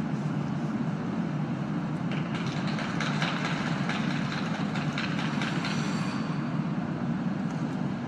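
Steady low rumble of an ice rink hall, with scattered clapping from the stands from about two to six seconds in.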